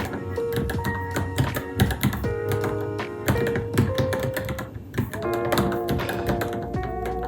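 Typing on a Varmilo Minilo keyboard: a quick, uneven run of keystroke clicks, with background music playing throughout.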